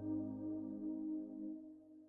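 Background music ending on a held ambient chord that fades out about a second and a half in.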